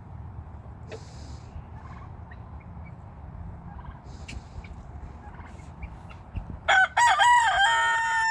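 A rooster crows loudly near the end: a few broken notes, then one long held note that drops away at the close. Before that, only faint farmyard background.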